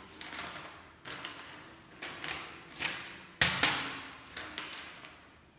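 A sheet of paper rustling and crackling as it is handled and shown, in a series of short crinkles, with one sharp crack about three and a half seconds in.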